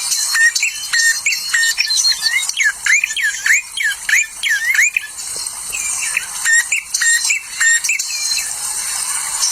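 Several small wild birds chirping and calling over one another over a constant high twittering. A fast run of short swooping calls comes from about two to five seconds in.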